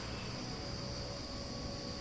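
Outdoor ambience: a steady, unbroken high-pitched insect trill, like crickets, over a low rumble.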